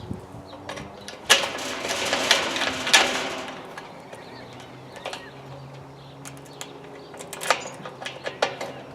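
Handling noise at a freshly drilled metal gate lock latch: a sharp click, then about two seconds of brushing hiss with a few more clicks, and scattered metal clicks near the end, as the drill shavings are cleared away.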